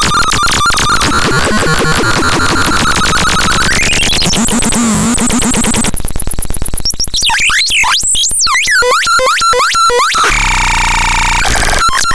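Synthesizer No. 78002 making electronic effects: a fast-pulsing tone that sweeps up in pitch, then a burst of hiss, a run of repeated swooping chirps, and a held buzzing tone near the end.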